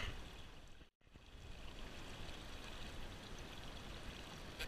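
Shallow river current washing and rippling around a wader's legs, a steady rushing wash; the sound drops out for a moment about a second in, then resumes.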